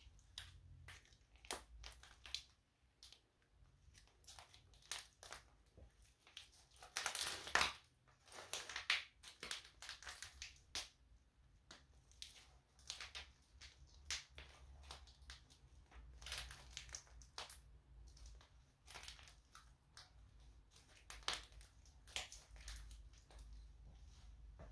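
Black Nike Air Max Tn sneakers treading and grinding on a pile of dry husks, giving irregular crackling and crunching. It comes in clusters, loudest about a third of the way in and again near the end.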